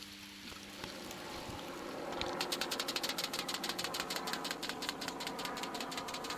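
Small engine running with a fast, even ticking and a steady tone, coming in about two seconds in.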